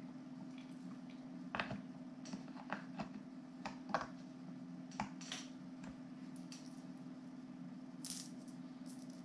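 Small metal screwdriver bits clicking and rattling against their slots in a plastic storage case as fingers handle them: a run of sharp clicks between about one and a half and five and a half seconds in, over a low steady hum.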